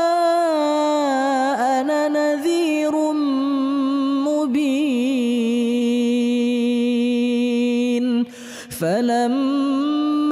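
Solo Quran recitation in melodic tajwid style, the reciter drawing out long held, ornamented notes on the close of a verse. A short pause for breath comes about eight seconds in, and then the next verse begins.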